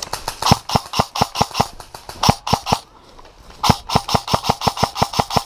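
Footsteps on a leaf-covered forest path with the rattle of worn gear and a carried airsoft rifle, about four knocks a second, pausing briefly midway.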